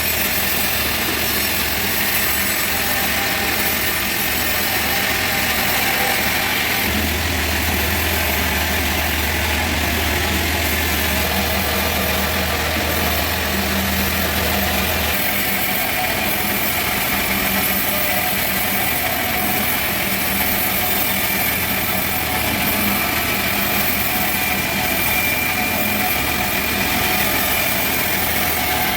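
Sawmill machinery running steadily, a continuous engine-like drone, with a deeper low hum from about seven to fifteen seconds in.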